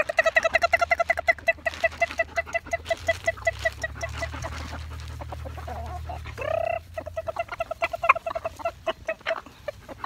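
Chickens being called in with a fast, evenly repeated clucking-like call, about six pulses a second, each run opening with a rising note. The call comes in two runs, the second starting about six seconds in.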